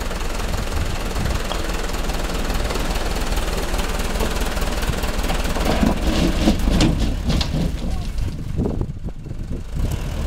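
Stuck dump truck's diesel engine running, a steady low rumble, with a few knocks and rattles partway through.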